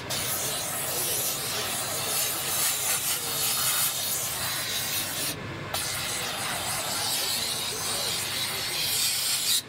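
Steam jet from a Scarpavapor No Limits shoe-cleaning steam gun hissing steadily as it is sprayed onto a shoe, with a brief break about halfway through. It cuts off sharply near the end.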